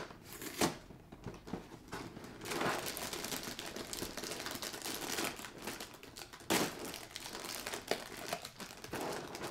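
A cardboard Kellogg's Special K cereal box is opened and its plastic inner bag is pulled apart, crinkling steadily. There are a couple of sharp snaps near the start and a louder crackle about six and a half seconds in.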